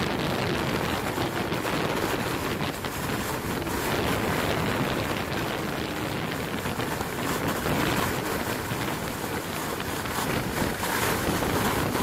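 Steady rushing noise of wind buffeting the microphone while being pulled at speed over the ice behind two sled huskies.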